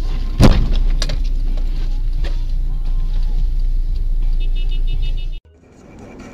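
Steady low rumble of a car's engine and tyres on snow, heard inside the cabin, with a loud sharp bang about half a second in as it strikes a car that has slid across in front, followed by a couple of smaller knocks. Near the end the rumble gives way to a quieter cabin hum.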